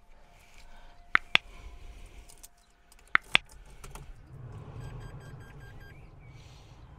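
Sharp clicks in two pairs, about two seconds apart, from the key and ignition of a Dacia Spring being switched on. About halfway through, a faint run of short electronic beeps and a low hum follow as the car's electrics come on.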